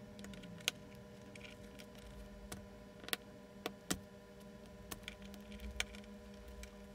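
Faint, irregular clicks and small scrapes of a thin metal blade prying the metal shield can off a camcorder viewfinder's high-voltage transformer, over a steady low hum.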